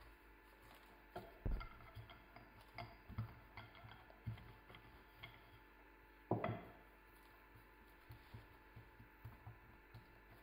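Faint taps and rustles of hands pressing and smoothing a sheet of rolled-out dough on parchment paper, with a wooden rolling pin handled over it. Two louder knocks stand out, about a second in and just after six seconds.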